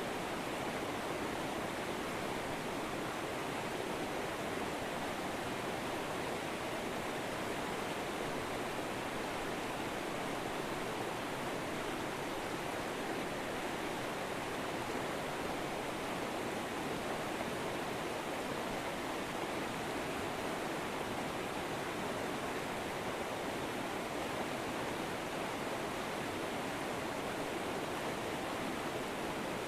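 River water flowing over rocks: a steady, even rush of current.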